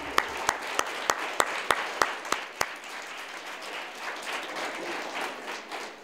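Audience applauding, with loud, single hand claps close by, about three a second, that stop a little before halfway through while the applause goes on and slowly dies down.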